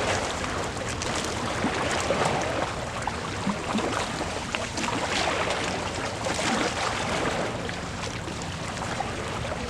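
Lake water splashing and lapping, an uneven wash with small irregular splashes, just after a catfish has been released back into the water.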